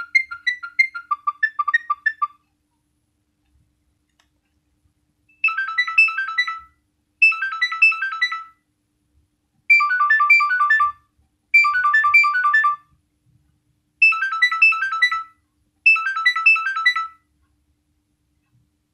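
Nokia 6100 mobile phone ringtones. One electronic melody of quick notes ends about two seconds in. After a pause of about three seconds another ringtone starts: a short phrase of rapid beeping notes played six times, about two seconds apart.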